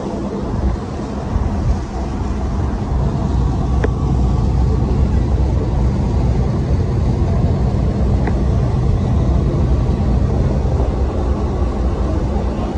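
Passenger ferry under way at speed: a loud, steady rumble of its engines and the rush of its wake churning alongside the hull, with wind on the microphone.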